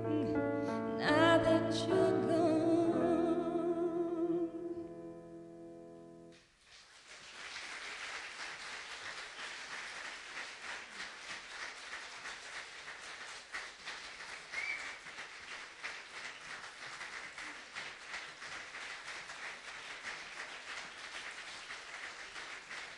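A female singer holds the song's final note, wavering, over sustained keyboard chords; the note fades out about six seconds in. Audience applause follows.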